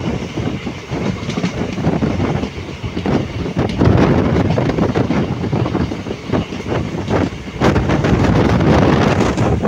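Express train passenger coach running at speed, heard from an open door or window: a steady rumble of wheels on rails with irregular clicks as the wheels cross rail joints, mixed with rushing air.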